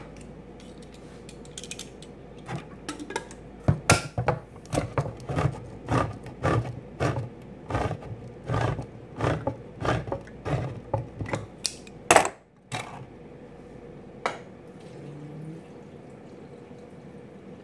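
Hand-crank can opener cutting around the lid of a metal can, a run of sharp clicks about two a second as the handle is turned, ending in one louder clack about twelve seconds in.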